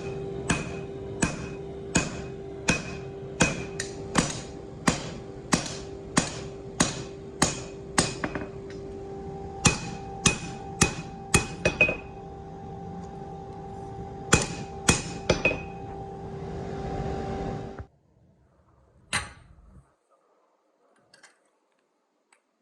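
Hammer blows on steel, a little faster than one a second in several runs with short pauses, each ringing briefly. A steady hum runs underneath and cuts off suddenly near the end, and one last clank follows.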